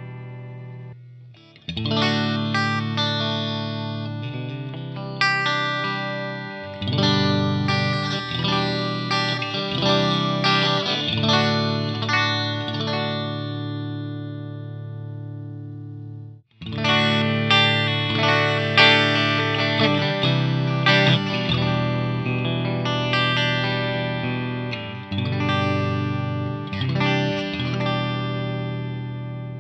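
Greco SE 600 Stratocaster-style electric guitar played with a pick through a Laney VH100R valve amplifier, strumming chords that ring out and decay. About halfway through, the sound cuts out abruptly, then the playing starts again.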